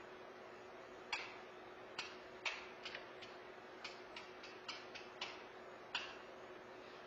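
Irregular light clicks and taps, about a dozen in five seconds, from hands and tools working on a golf cart, over a faint steady hum.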